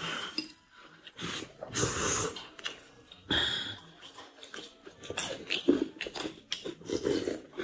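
A person biting into a steamed bun and chewing, with wet mouth noises, breaths and small clicks.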